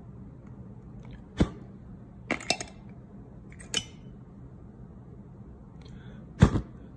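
Sharp metallic clicks and clinks from handling an antique brass jump spark lighter and its wick rod: one, then a quick cluster, then another, with the loudest near the end.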